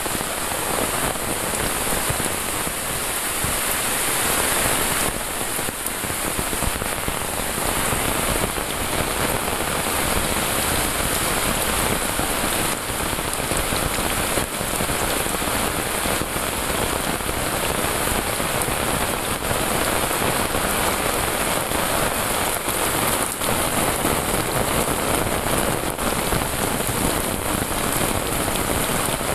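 Heavy rain pouring steadily, a dense unbroken hiss of rain falling on leaves, ground and paths.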